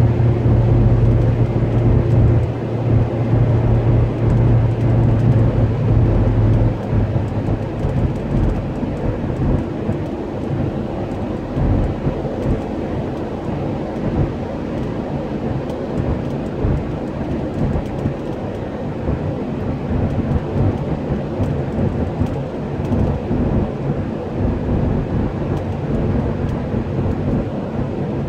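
Road noise inside a car's cabin at expressway speed: a steady low rumble of tyres and engine. A low hum stands out for the first several seconds, then drops away about seven seconds in.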